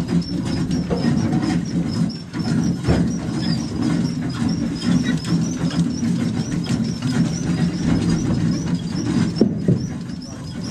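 The boat's Detroit Diesel Series 60 inline-six diesel running steadily, a low drone, with a faint high chirp repeating about twice a second and occasional light knocks.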